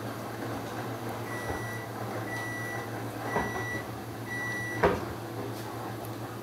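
Four electronic beeps from an appliance's beeper, evenly spaced about a second apart and each about half a second long, then a single sharp knock just after the last beep, over a steady low hum.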